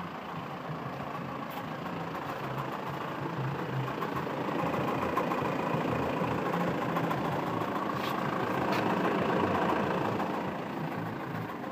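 Mitsubishi Pajero's 3.2 L 4M41 four-cylinder turbodiesel running steadily with an extraneous knock the owner is trying to trace, plus two sharp clicks about eight seconds in.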